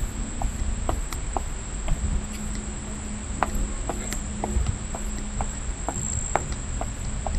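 Insects, crickets by the sound of it, trilling in a steady high, unbroken chorus, over footsteps going down outdoor steps as a scatter of irregular sharp clicks.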